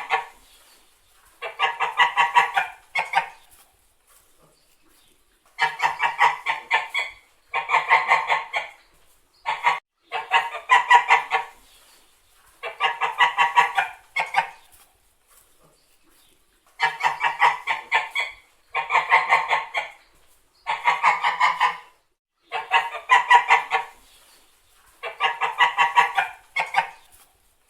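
Domestic white geese honking in repeated runs, about a dozen in all: each run is roughly a second of rapid honks, with short pauses between runs.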